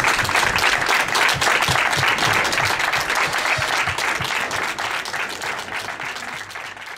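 Small crowd applauding with many hands clapping at once, gradually fading out towards the end.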